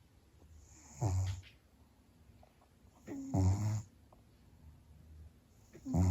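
Large domestic cat snoring in deep sleep: three snores about two and a half seconds apart, the last starting near the end, with quiet breathing between.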